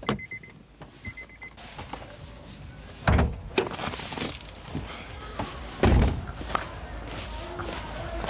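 Honda S2000 interior and doors: a sharp click as the bonnet release lever is pulled, two short high beeps, then two heavy car-door thuds about three and six seconds in as the door is opened and shut, followed by footsteps crunching on gravel.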